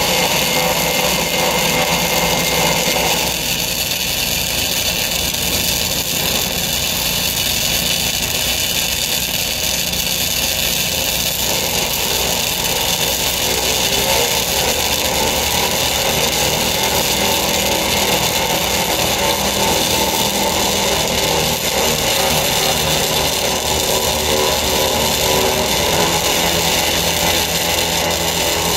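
Flux-cored wire welding arc burning steadily on structural steel as a 5/16 weld is run on a gusset plate, a continuous crackling sizzle without a break; its tone shifts about three seconds in and again around twelve seconds.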